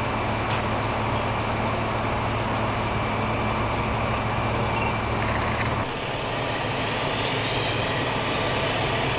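Steady noise of freeway traffic and running vehicle engines. A low hum in it drops out about six seconds in, where the sound changes.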